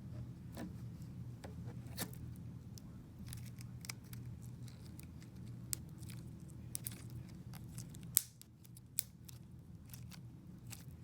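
Slime being mixed and worked by hand, giving irregular sticky clicks and pops over a low steady hum.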